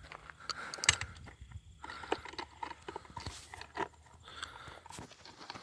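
Footsteps crunching on rough ground, with scattered small knocks and scrapes; one sharper knock comes about a second in.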